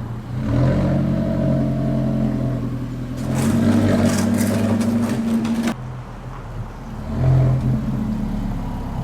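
Alfa Romeo 4C's turbocharged four-cylinder on its stock exhaust, running under acceleration. It gets loudest about halfway through and cuts off abruptly, then swells again briefly near the end.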